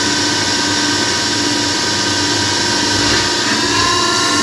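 KAE JIUP 5-inch CNC lathe machining a part under coolant flow: a steady machine whine with several held tones over a hiss. The tones step slightly higher in pitch about three and a half seconds in.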